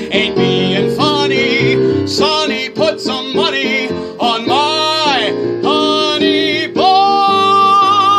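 A man singing the closing phrases of a Broadway show tune with strong vibrato over instrumental accompaniment, ending on a long held note from about seven seconds in.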